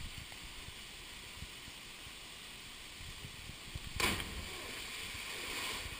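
A person plunging into a waterfall pool: a splash about four seconds in that hisses on for a second or two, over a steady rush of falling water.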